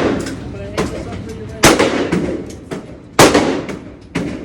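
Gunshots on a shooting range: several sharp shots, irregularly spaced about a second apart, each followed by a short echoing tail. The two loudest come about a second and a half and three seconds in.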